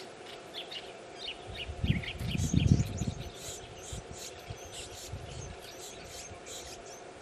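Dusky woodswallows chirping: a fast, continuous run of short, high chirps. A low rumble, louder than the chirps, comes from about two seconds in and lasts a little over a second.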